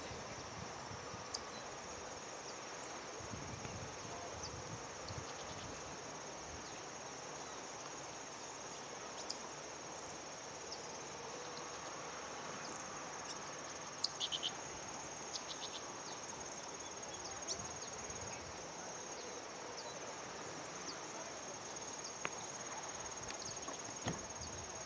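Steady, high-pitched insect trill, with a few brief sharp ticks about halfway through.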